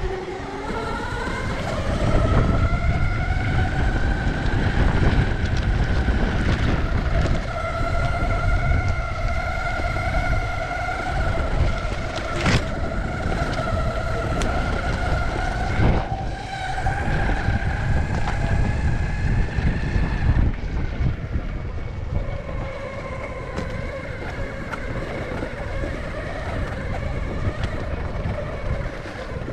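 Electric skateboard motors whining as the Eovan GTS Carbon Pro rides a dirt trail: the whine rises in pitch over the first couple of seconds as the board speeds up, then holds steady, over a low rumble from the all-terrain wheels. Two sharp knocks from bumps, about 12 and 16 seconds in.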